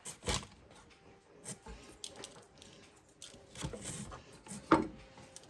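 A kitchen knife cutting mini bell peppers on a cutting board, with a few irregular knocks and soft cuts. The loudest knock comes near the end.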